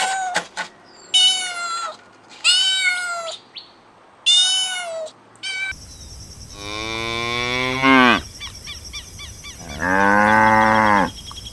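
A cat meowing about four times, short calls a second or so apart. Then a cow mooing twice: first a long moo that falls in pitch, then a shorter, steadier one near the end.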